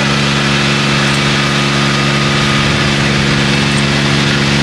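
Engine of an old Yanmar 10-row riding rice transplanter running at a steady working speed while it plants, its note even and unchanging.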